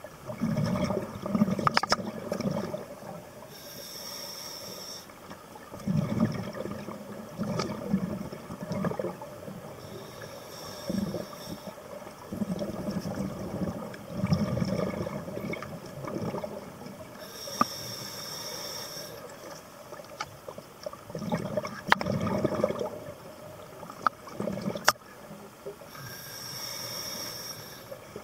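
Scuba diver breathing through a regulator: a hiss with each of four inhales, each followed by a bubbling rumble of exhaled air, with a few sharp clicks.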